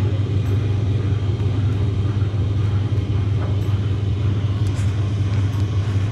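Tumble dryer running, its drum turning with a steady low hum and rumble.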